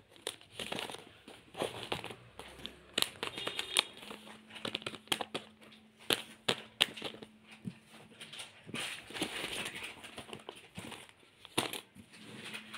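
Shiny plastic blind-bag packets being handled, rustling and crinkling in irregular bursts with sharp crackles.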